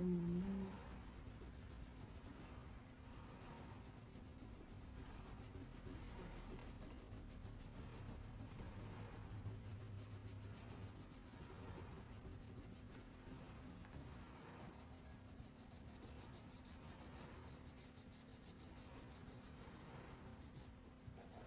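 Crayon rubbing back and forth on a sheet of paper as a drawing is coloured in: faint, repeated scratchy strokes.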